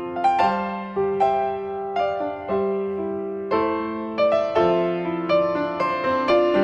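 Slow, gentle solo piano music: single notes and soft chords, one struck roughly every second and left to ring and fade.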